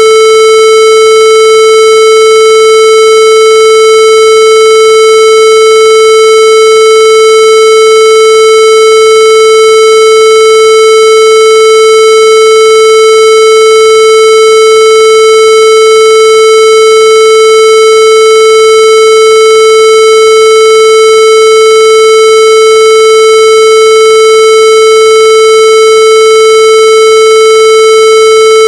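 A loud, steady, buzzy electronic tone held at one unchanging pitch, with no breaks or variation.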